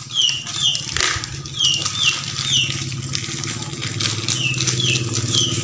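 A bird chirping: short falling chirps repeated in quick twos and threes. Under it, a steady low motor hum sets in about a second in.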